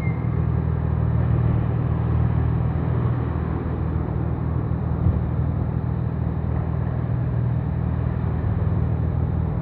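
Audi S4 B5's tuned 2.7-litre twin-turbo V6 running steadily with a low, even rumble.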